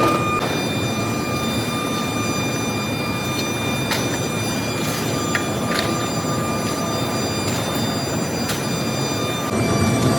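Steady rumble of heavy industrial machinery with a faint high whine, broken by a few sharp metallic clicks.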